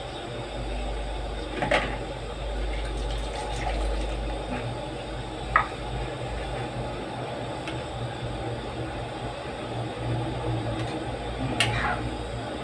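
Chicken in coconut milk simmering in a metal pan on a stove: a steady rushing, bubbling noise with a few sharp clicks. Near the end a metal ladle knocks against the pan as it starts stirring.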